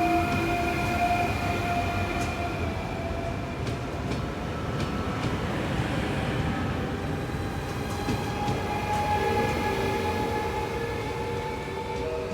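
Electric passenger train moving in the station over a steady low rumble, with the whine of its traction motors: the pitch sinks slightly over the first few seconds, then a new whine rises from about six seconds in.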